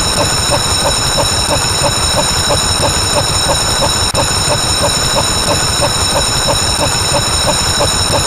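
A dense mix of layered, looping sound effects playing at once: a steady high-pitched whine, quick pips at about four a second, and a low rumbling noise underneath.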